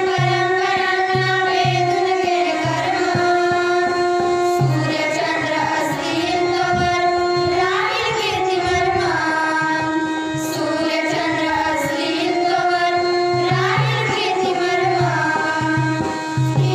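A group of schoolgirls singing a song together into a microphone, holding long notes that slide between pitches. A low drum-like beat comes in at about two a second at the start and again near the end.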